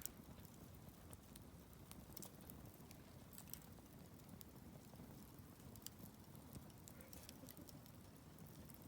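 Wood campfire burning quietly, with faint, scattered sharp crackles and pops about every second over a soft low rush of flames.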